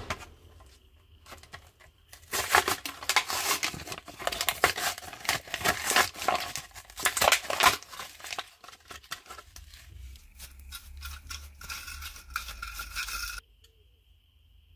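Hot Wheels blister-card package being opened by hand: plastic crinkling and card tearing in a dense run of clicks and rustles. It starts about two seconds in, turns squeakier near the end, then cuts off suddenly.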